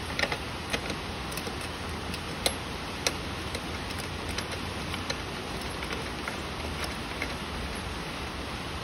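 Scattered small metal clicks and taps of a bolt being turned by hand into a motorcycle's fairing bracket, a few sharper ones in the first three seconds, over a steady hiss and low hum.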